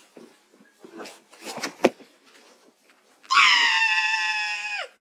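A pitched-up human voice of a talking-apple character lets out one long, high scream, about a second and a half long, that falls in pitch as it cuts off. Before it come a few faint clicks and rustles.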